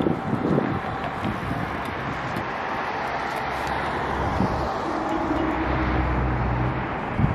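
Wind buffeting the microphone over road traffic, with a vehicle's steady low engine hum rising and fading past the middle.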